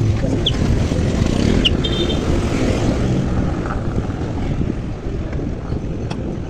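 Steady low rumble of wind on the microphone and street traffic noise, with a few brief high squeaks in the first two seconds.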